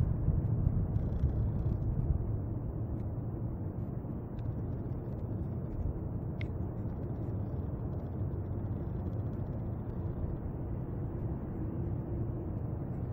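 Steady low rumble of outdoor background noise on the camera's microphone, louder and more uneven for the first two seconds, then even, with one faint tick about six and a half seconds in.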